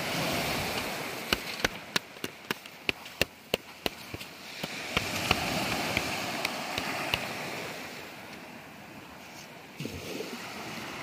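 Surf washing on the shore in two slow swells. A quick run of sharp clicks comes about a second in, and a few more follow later.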